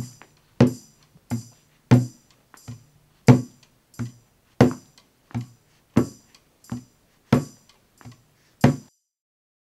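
Hand drum beaten in a steady alternating soft-hard beat, about three beats every two seconds: the rhythm for the drag step, toe down on the soft beat and heel pressed down on the hard one. About fourteen strikes, stopping about nine seconds in.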